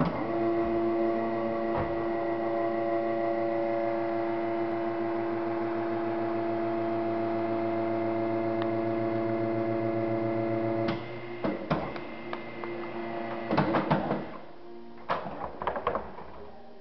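Formech 660 vacuum former's vacuum pump running with a steady hum while a plastic sheet is drawn down over the mould. The hum stops about eleven seconds in, followed by a few sharp knocks and clatters.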